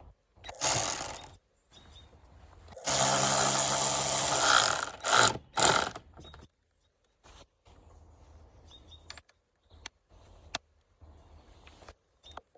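Cordless power drill/driver running in short bursts, the longest about two seconds, with a steady motor whine. Light clicks and handling noise follow.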